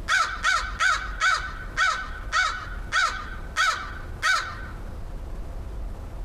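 American crow cawing: a series of nine short caws at a steady pace, slowing slightly, ending about four and a half seconds in.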